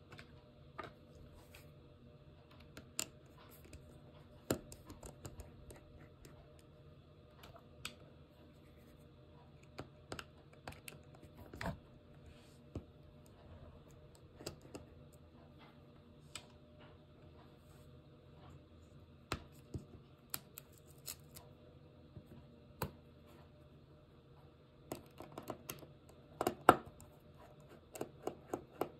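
Irregular clicks and taps of a computer keyboard, scattered with pauses and bunched into a quicker run near the end, over a faint steady hum.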